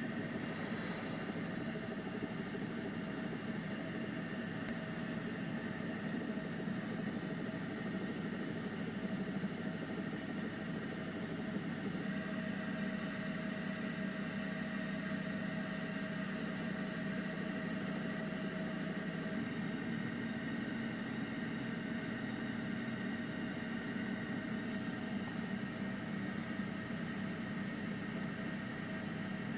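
A steady mechanical drone with a low hum and a faint, even whine above it, unchanging throughout with no distinct events.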